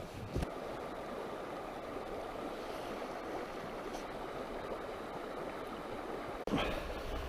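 Flowing river water rushing steadily over a stony riffle. It breaks off abruptly about six and a half seconds in, and a similar but deeper rush follows.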